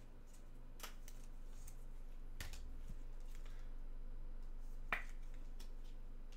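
Sharp clicks and snaps of trading cards and their packaging being handled, three louder ones spread a second and a half to two and a half seconds apart with fainter ticks between, over a low steady hum.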